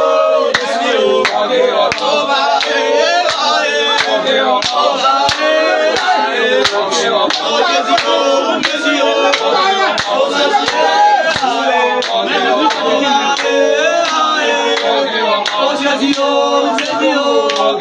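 A group of voices singing together in unison, a cappella, with handclaps.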